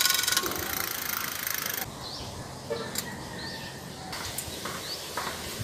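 Bicycle drivetrain running as the crank is turned by hand: a dense rattle of chain over chainrings and rear cogs with fast ticking, cutting off sharply about two seconds in. After that, quieter outdoor background with a few short bird chirps.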